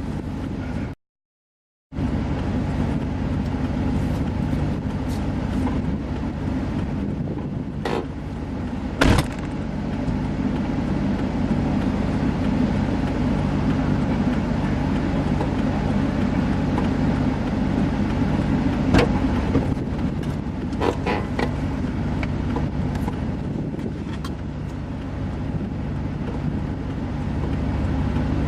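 Car driving along, with a steady engine hum and road noise and a few sharp knocks and clicks. The sound cuts out completely for about a second near the start.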